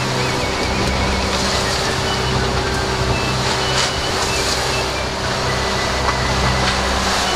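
Boat engine running steadily under way, with the rush of water and wind against the hull in choppy seas, heard from inside the wheelhouse.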